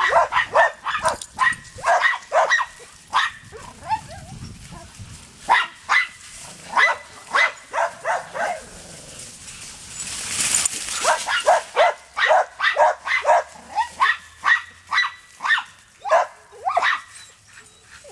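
Dogs barking in quick runs of short, high barks, with brief pauses between runs, as they play chase.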